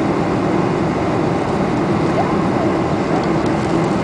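Steady cabin noise inside a Boeing 747-400 airliner in flight: the even rush of airflow and the hum of its four jet engines during descent.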